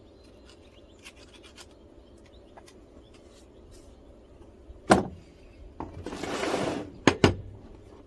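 Metal hand tools, an adjustable wrench and wire strippers, handled on a plywood workbench: a few light clicks, a loud clack about five seconds in, a scrape of about a second, then two sharp knocks close together near the end as a tool is set down on the wood.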